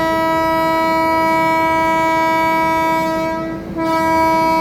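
Train horn sounding one steady note in a long blast that breaks off about three and a half seconds in, then sounds again after a short gap, over the low rumble of the moving train.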